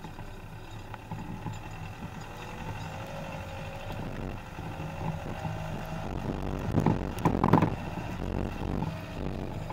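Skoda Octavia TDI driving along a dirt forest track, heard from a camera mounted on the outside by the wheel: steady tyre rumble over the dirt with wind on the microphone and a faint engine tone. A cluster of louder knocks and rattles comes about seven seconds in as the wheel and suspension take bumps.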